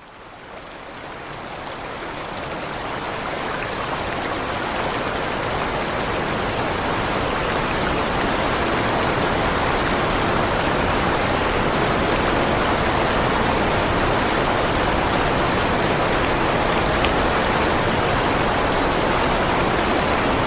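White noise fading in over the first few seconds, then a steady, even hiss with no changes.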